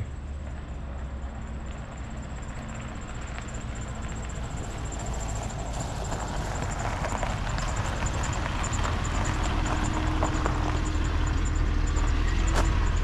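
A car approaching, its engine and tyres growing steadily louder as it draws near.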